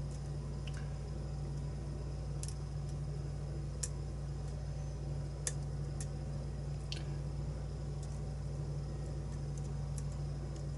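Lock pick and tension wrench working the pins of a challenge lock: about six faint, sharp clicks spread a second or two apart, over a steady low hum.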